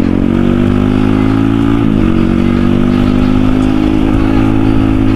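Motorcycle engine running steadily at low road speed, heard from the rider's seat, with a brief dip and recovery in pitch about two seconds in.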